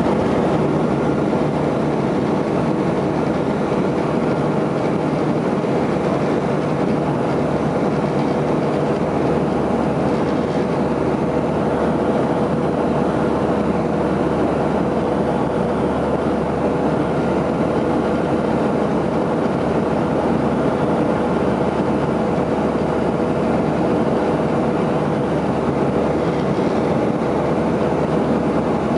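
Airplane engine running steadily in flight: a loud, even drone with a constant hum.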